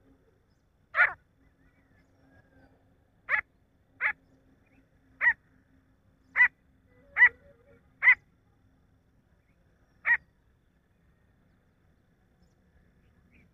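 Grey francolin calling: eight short, sharp calls at uneven gaps over about nine seconds, then none.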